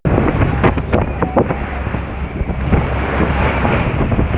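Wind buffeting the microphone over the rush of sea waves on the shore. A few short splashes or knocks come about a second in.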